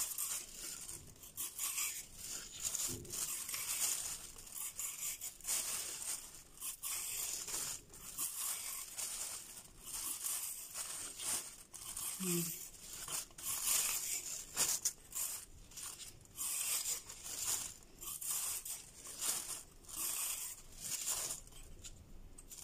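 Vegetable peeler scraping along a large raw carrot in quick repeated strokes, stripping off the peel.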